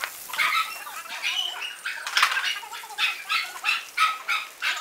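Dogs play-fighting: a quick run of short, rough vocal bursts, about three a second.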